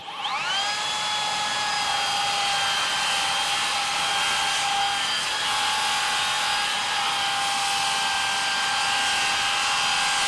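SKILSAW TRUEHVL cordless worm drive circular saw with a 24-tooth Diablo framing blade, starting with a rising whine as it spins up, then ripping through pressure-treated 4x6 timber at a steady pitch without bogging down.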